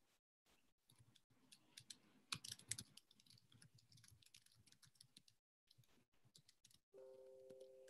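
Faint computer keyboard typing and clicks, picked up through a video-call microphone that cuts out to dead silence now and then. About a second before the end, a steady two-note hum comes in.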